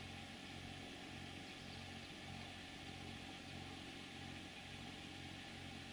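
Faint, steady low hum of the Islander Bahama 30 sailboat's inboard engine running as the boat motors through calm water, with a soft hiss over it.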